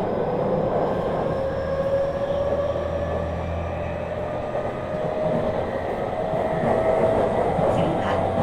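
Tokyu 5000 series electric train's traction motors and Hitachi IGBT-VVVF inverter whining, the tone rising slowly as the train gathers speed, over a steady rumble of wheels on rail.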